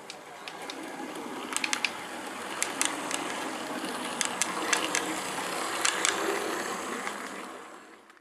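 Model railway train running past close by: a motor and wheel rumble that grows as it approaches and fades as it moves away, with scattered sharp clicks of the wheels on the track.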